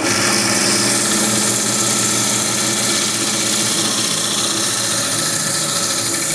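Coral band saw running steadily, its blade cutting through the stony skeleton of a Duncan coral (Duncanopsammia): a motor hum under a hiss from the cut.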